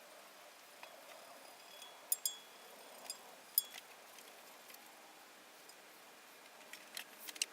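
Sharp metallic clinks and taps of small metal parts and tools being handled on a workbench, each with a brief ring: two close together about two seconds in, a couple more shortly after, and a quick cluster near the end.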